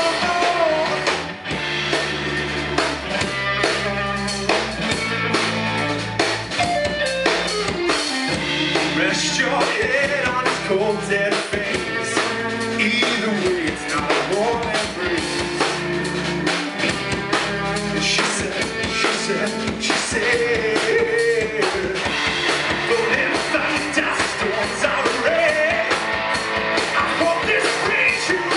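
Live rock band playing: electric guitars, bass guitar and drum kit, with a male lead vocal.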